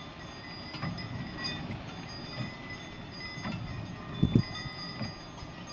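Wind chimes ringing irregularly in the storm gusts, with wind rumbling on the microphone and a loud low buffet about four seconds in.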